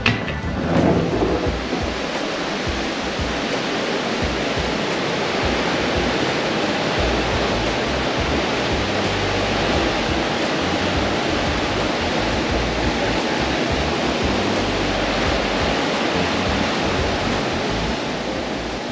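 Wind rushing over the microphone on the open deck of a moving ferry, mixed with the hiss of the ship's churning wake: a steady roar of wind and water noise with low, uneven buffeting from the gusts.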